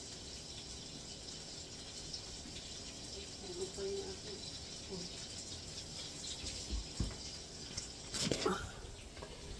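Food sizzling steadily in a frying pan, with a thud about seven seconds in and a brief clatter of handling knocks shortly after.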